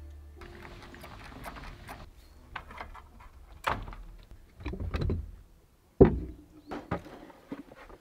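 Rattles, clicks and knocks of a campervan's roll-out awning and its support legs being set up. The hardest thud comes about six seconds in.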